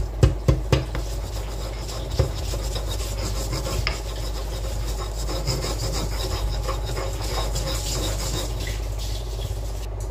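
Stone pestle grinding garlic and salt in a stone mortar (cobek and ulekan): a steady rasping rub of stone on stone, with a few sharp knocks in the first couple of seconds.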